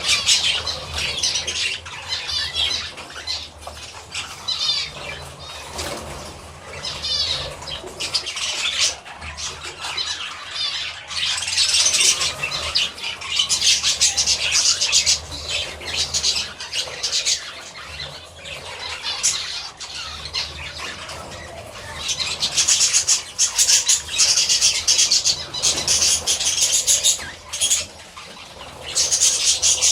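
Budgerigars chattering and squawking: a dense run of fast warbling chirps, swelling into louder bursts of chatter around the middle and again in the last third.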